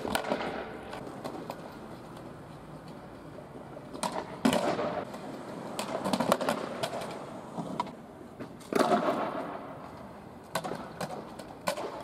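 Skateboard wheels rolling on pavement, with several sharp clacks of the board striking the ground during trick attempts: one at the start, a cluster about four seconds in, another near nine seconds and more near the end.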